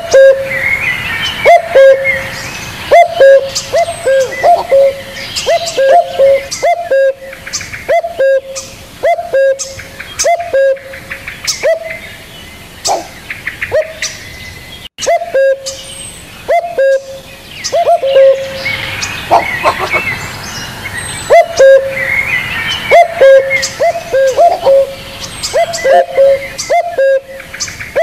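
Caged spotted dove cooing over and over, low hooting notes repeated about once a second in runs of several, with higher bird chirps scattered over it.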